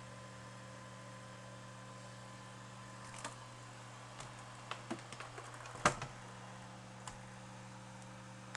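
Steady low electrical hum with a handful of light clicks and taps between about three and seven seconds in, the sharpest near six seconds.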